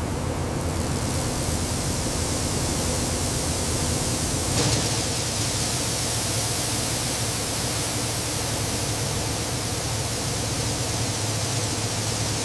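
Shelled corn kernels pouring in a steady rushing stream as a truckload is unloaded, over a low machinery hum. The sound shifts abruptly about four and a half seconds in and cuts off suddenly at the end.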